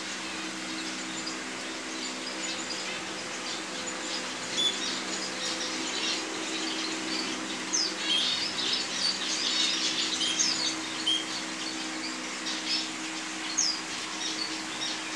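Many small caged finches chirping, short high calls coming thick and overlapping through the second half, over a steady low hum.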